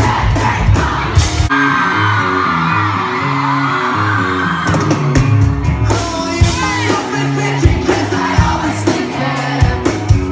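Pop-rock song with a steady, repeating bass line and sung vocals, with yelling and whoops over it.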